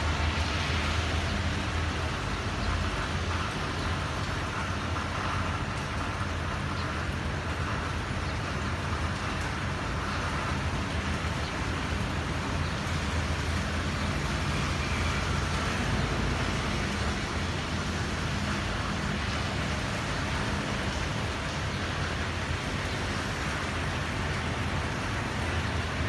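Steady rain on a wet street with road traffic: an even hiss of rain and tyres over a constant low rumble of passing vehicles.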